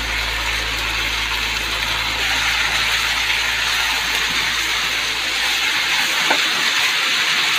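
Rice and vegetables sizzling steadily in a hot wok, with a low hum under the hiss that fades out about five seconds in.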